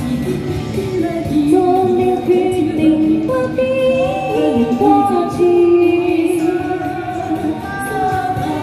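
Cantonese pop song performed live: a woman's singing voice and a backing track from a small portable amplifier, playing a slow melodic passage of smooth, held notes.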